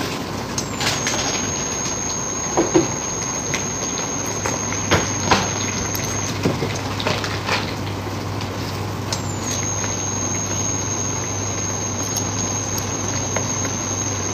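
Food cooking in a saucepan on an induction hob: a steady sizzling and bubbling with scattered pops and crackles.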